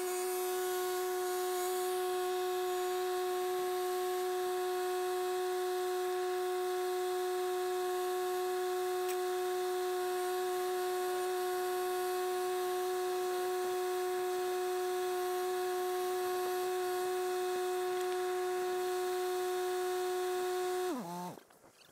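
A motor running with a steady whine at one pitch, which winds down in pitch and stops near the end.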